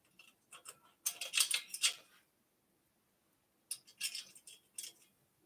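Metal e-bike front fender hardware clinking and rattling in three short bursts as it is worked by hand. The middle burst, about a second in, is the loudest.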